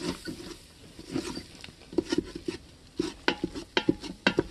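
A utensil stirring and scraping around a stainless steel Instant Pot inner pot, working flour into melted butter to make a thick paste. The scrapes and knocks are irregular and come faster in the second half.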